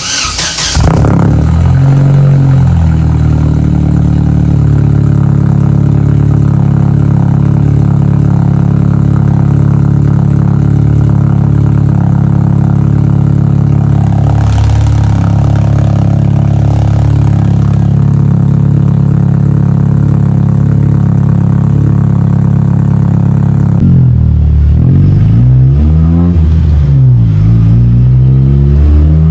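Chevrolet Astra 1.8 four-cylinder engine, fitted with an aftermarket intake, starting up and settling into a steady idle. Near the end it is revved several times, rising and falling in quick blips.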